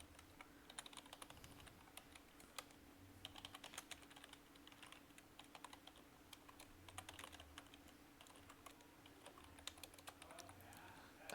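Faint typing on a computer keyboard: irregular key clicks, over a faint steady hum.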